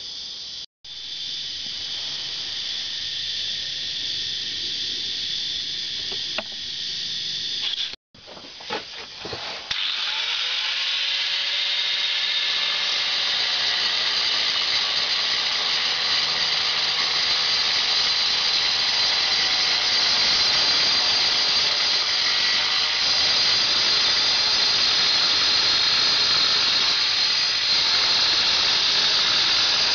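Angle grinder with a diamond-tipped blade dry-cutting a tile: a steady high-pitched whine and grinding. It breaks off briefly twice in the first eight seconds, then from about ten seconds in runs louder and harsher as the blade works through the tile.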